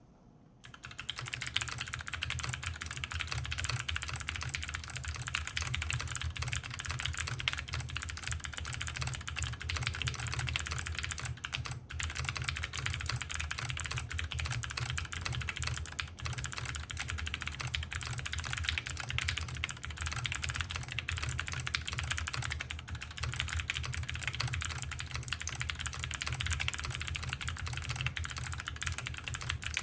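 Steady, continuous typing on an HMKB WKL tenkeyless mechanical keyboard with Gateron Melodic switches, JTK Tianwen keycaps and a leaf-spring-mounted steel plate with plate foam, starting about a second in.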